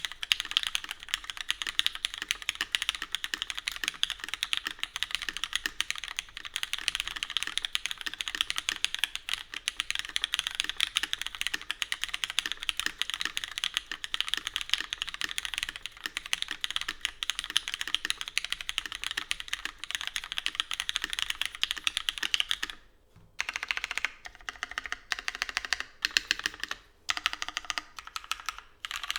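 Daji Ocho Cuatro mechanical keyboard being typed on fast and continuously: lubed Cherry MX Black linear switches in an aluminium plate under CRP Tulip keycaps. About 23 seconds in the typing stops briefly and resumes in shorter, broken bursts of keystrokes.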